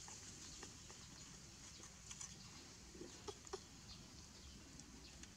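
Near silence: faint room tone with a few soft, short clicks and squeaks, the loudest about three and a half seconds in.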